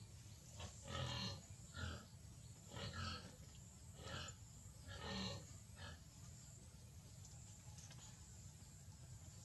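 A baby monkey giving a run of short grunts, about six of them spread over the first six seconds.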